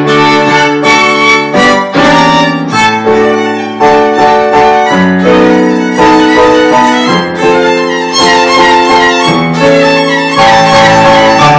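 Violin playing a dance tune with upright piano accompaniment, the violin melody over piano chords.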